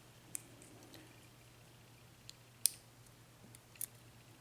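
A few light, sharp clicks spaced over a few seconds, the loudest about two and a half seconds in: small metal parts of a Yale pin-tumbler mortice lock cylinder, its springs and spool top pins, being worked out of the pin chambers.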